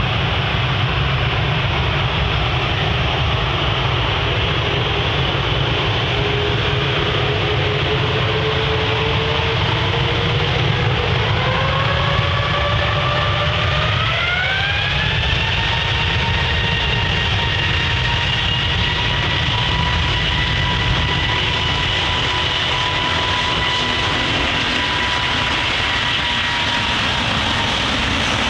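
Airliner jet engines running with a steady loud rumble, while a whine climbs in pitch about halfway through and then holds: the engines spooling up to takeoff thrust.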